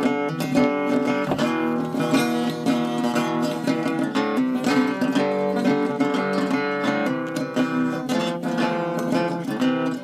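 Background music played on acoustic guitar, with quick plucked notes.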